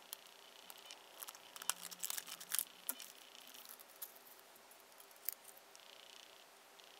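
Plastic blister pack of a laptop RAM module being pried open and handled: scattered faint clicks and crinkles, busiest between one and three seconds in, with a single sharp click a little after five seconds.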